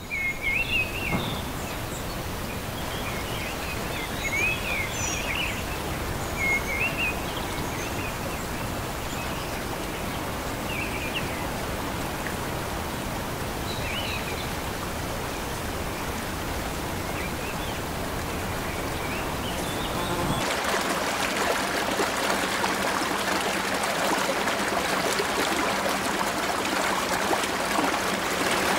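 Birds chirping over a steady outdoor rush with a low rumble. About twenty seconds in it cuts abruptly to a shallow stream running over stones, a brighter, hissing rush of water.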